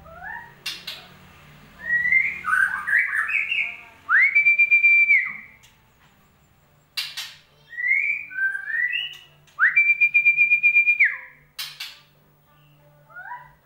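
White-rumped shama song used as a lure to get a silent shama singing: quick whistled phrases with two long held notes that pulse rapidly, about four and ten seconds in, and a few sharp clicks between phrases.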